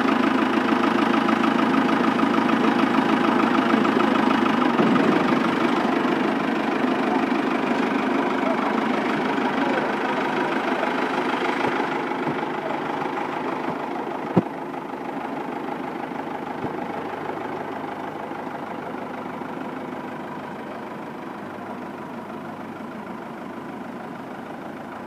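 Fiat 550 tractor's three-cylinder diesel engine running at a steady idle with a knocking beat as the tractor creeps forward, growing gradually fainter. A single sharp knock about halfway through.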